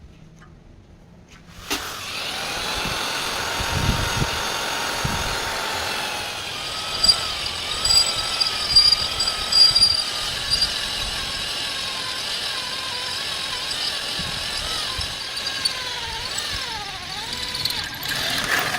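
Electric power tool running steadily under load, starting abruptly, its motor pitch wavering and sagging near the end, with some crackling in the middle.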